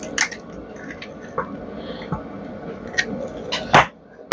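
Scattered clicks and small knocks of metal range-hood parts being handled during teardown, with a sharp, loud knock near the end.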